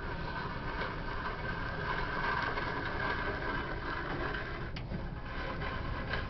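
Clausing Atlas 10-inch table saw running, a steady mechanical whir with a constant whine over a low rumble. A single sharp click comes about three-quarters of the way through.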